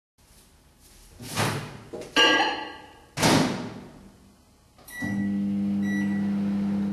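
Loud thuds and a ringing clatter, like a door banging. About five seconds in, a steady low hum starts, with two short high beeps.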